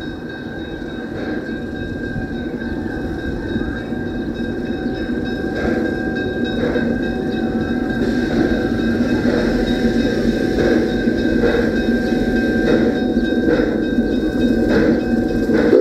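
Small replica steam locomotive with its passenger train approaching slowly, its running growing louder as it nears. A steady high whine runs under it, and from about six seconds in a sharp knock comes roughly once a second.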